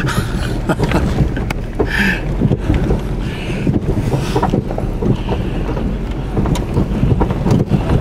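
Rumble of a vehicle heard from inside the cabin as it bounces along a rough, rocky dirt track, with many sharp knocks and rattles from the jolting.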